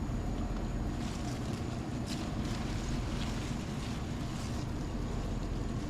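Wind on the microphone: a steady low rumble, with a few faint rustles of garden plants.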